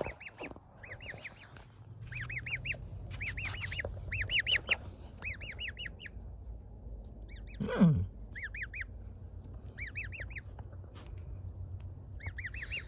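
Gosling peeping: short arched high peeps in quick runs of three to five, repeated about once a second. About eight seconds in, one louder sound falls steeply in pitch.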